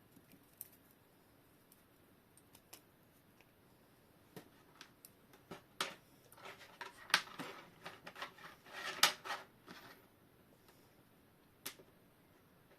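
Nylon cable ties being pulled tight by hand around a coiled clock mainspring: scattered sharp clicks, with a busier run of clicks and rustling from about six to nine seconds in.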